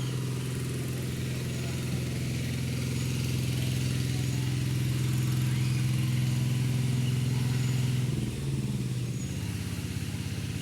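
A small engine running steadily; about eight seconds in its speed drops and it settles to a lower, rougher note.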